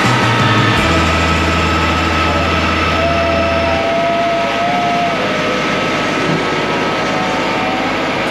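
Compact tractor engine running steadily as it drives along, mixed with wind noise, under background music with deep sustained bass notes.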